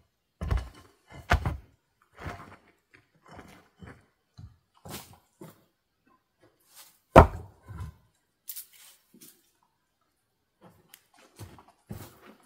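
Flat rock slabs being lifted, scraped and set down on one another to build a small fire ring: a series of scrapes and dull stone-on-stone knocks, the loudest a sharp knock about seven seconds in.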